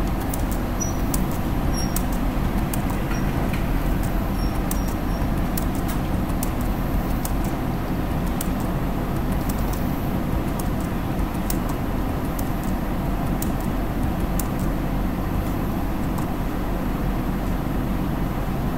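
Steady low rumbling background noise with a constant hum and faint scattered clicks.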